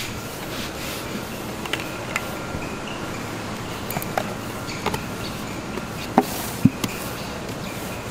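Large stainless-steel basin clinking and knocking against a steel work table as it is tipped over to turn out a mass of dough: scattered light clinks, then two louder knocks about half a second apart near the end, over a steady background hum.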